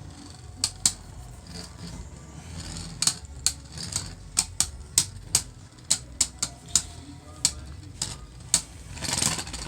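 Beyblade Burst tops Vise Leopard and Drain Fafnir clashing in a plastic stadium: a run of sharp, irregular clacks, a few a second, with a busier cluster of hits about nine seconds in.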